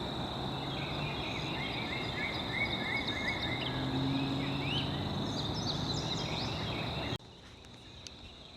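Outdoor nature ambience: a steady high insect drone with a bird's quick series of short chirps over it, and a faint low hum underneath. About seven seconds in the sound drops suddenly quieter, leaving mainly the insect drone.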